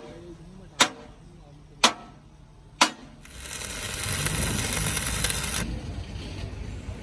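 Three sharp metal knocks about a second apart, then about two seconds of stick arc welding on a steel truck chassis rail: a loud, dense crackle from about three seconds in that cuts off abruptly.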